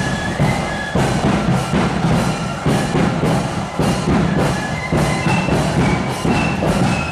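Marching band playing, with high, held melody notes over a steady drumbeat.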